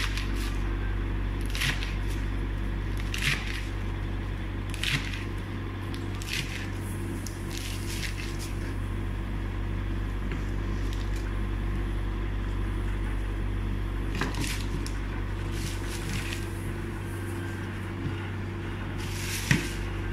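Kitchen knife slicing crisp romaine lettuce on a cutting board, in short crunchy cuts every second or two with a pause midway and a sharper cut near the end. A steady low hum runs underneath.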